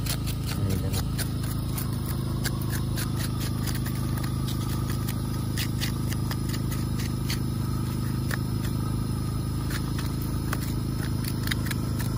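A steady low motor drone, such as a vehicle running, with many small clicks and rattles scattered through it.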